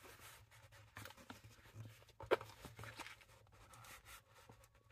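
Faint, scattered clicks and light rustling of tools being handled in a nylon tool bag, with one sharper click a little over two seconds in.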